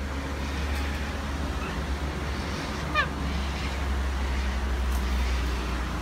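Steady low rumble of traffic, with one short falling call from a sulphur-crested cockatoo about three seconds in.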